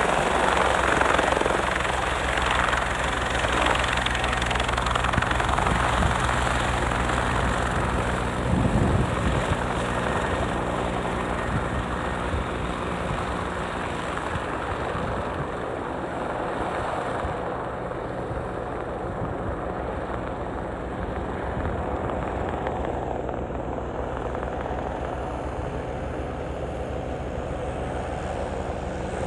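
Bell 430 twin-turbine helicopter lifting off and flying away: steady rotor beat and turbine whine, loudest at first and slowly fading as it climbs away, the high whine dropping off about halfway through.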